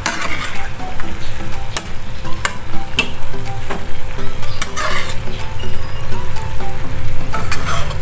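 Kangkong (water spinach) stems sizzling as they stir-fry in a pan, with the spatula now and then clacking and scraping against the pan as they are stirred.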